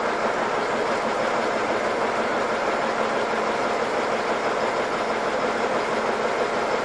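Diesel locomotive engine idling steadily.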